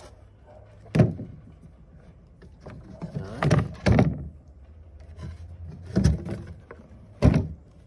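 Clunks and knocks of a stainless steel electric grain mill's grinding chamber being handled and tipped over, about five separate knocks, the sharpest about a second in and near the end.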